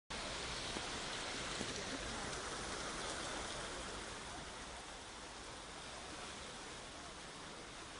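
Steady rushing hiss of heavy rain and running floodwater, easing slightly about halfway through.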